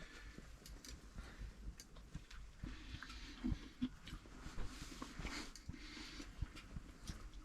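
Quiet chewing and small handling noises, scattered faint clicks and soft knocks, in a small enclosed room.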